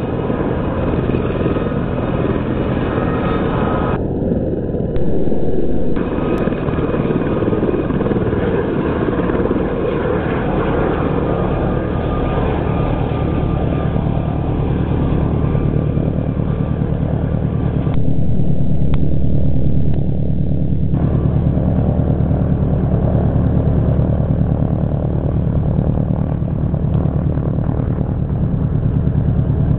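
Aérospatiale Gazelle military helicopter's turbine and rotor running with a fast, steady blade beat as it lifts off and flies away. Two louder low rumbles come through, about five seconds in and again near eighteen seconds.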